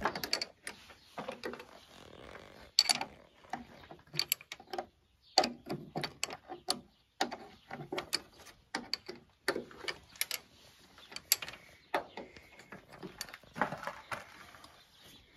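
Irregular metallic clicks and clinks of hand tools working on a combine's chain-drive sprockets and fittings. This is the drive being taken apart to reach a failed bearing.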